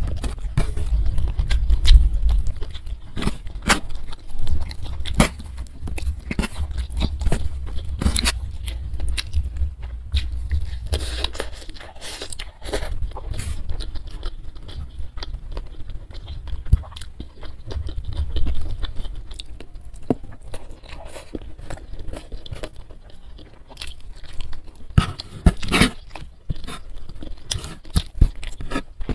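Close-miked chewing of a mouthful of rice and fish, with many short wet mouth clicks and smacks. A low rumble from the chewing is strongest in the first part and returns briefly later.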